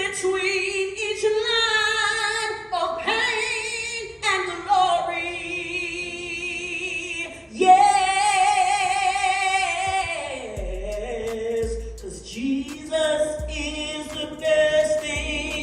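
Gospel singing: long, drawn-out notes with a wavering vibrato and slides between pitches, with low bass notes coming in about ten seconds in.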